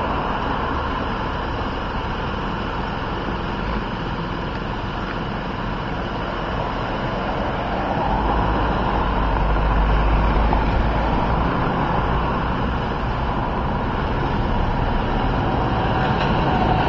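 Road traffic on the street, a steady run of vehicle noise, with a heavier vehicle rumbling past about halfway through.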